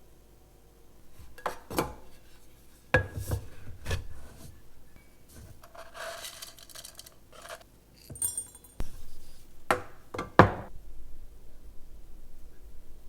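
Glass and dishware being handled: a series of sharp clinks and knocks, a short scraping stretch in the middle and one clink with a brief ringing tone.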